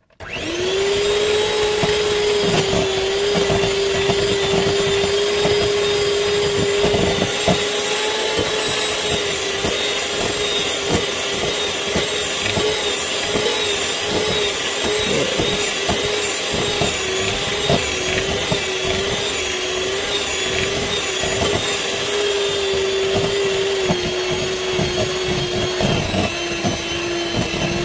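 Electric hand mixer switching on and running steadily, its beaters churning thick choux pastry dough in a glass bowl as the last egg is beaten in. The motor's hum drops slightly in pitch a couple of times near the end.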